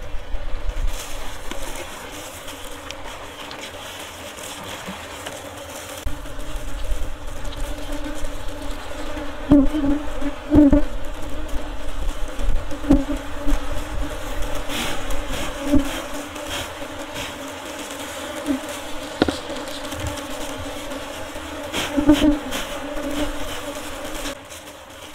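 Honey bees buzzing in a steady hum around their opened log hive, disturbed as comb is cut out. The hum swells louder several times.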